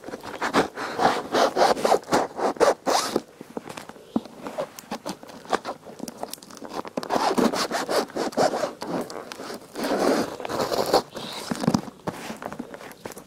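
Parcel packaging being torn and ripped open by hand: rapid, zip-like ripping and scraping in three bursts, with quieter rustling between them.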